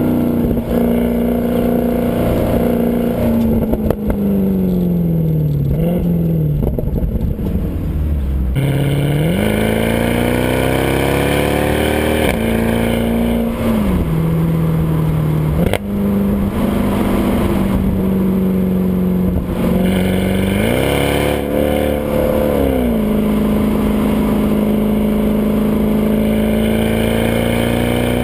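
Stock exhaust of a Mercedes C63 AMG's 6.2-litre V8, recorded right at the rear bumper. The pitch sinks as the car eases off, then climbs under acceleration about a third of the way in, dropping sharply at quick paddle upshifts. It settles into a steady cruise, with another brief climb later. A single knock comes near the middle.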